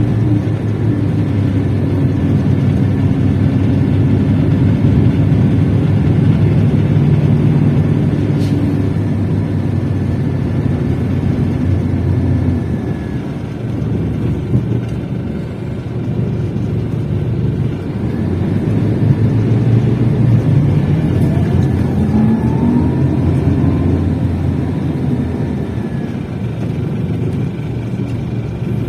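Scania K380 coach engine running under way, a steady low drone whose pitch shifts a few times, dropping about twelve seconds in.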